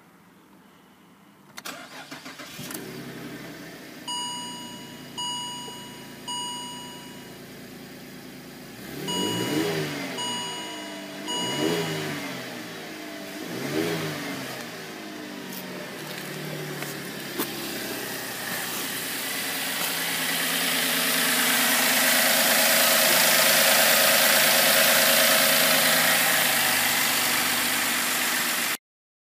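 Holden Commodore VE's V6 engine starting and settling into a fast idle, with three dashboard warning chimes. The engine is then revved in three quick blips, more chimes sounding alongside. It drops back to idle, and a louder steady rushing running sound builds over the last ten seconds before cutting off suddenly.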